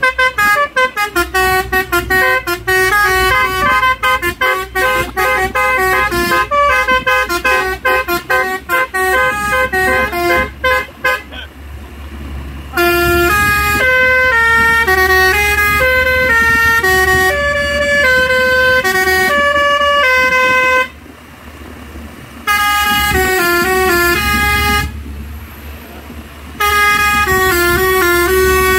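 Cement mixer truck's Basuri telolet multi-tone horn playing a tune: a fast run of short notes for about the first eleven seconds, then, after a short pause, longer held notes in three phrases with brief gaps between them.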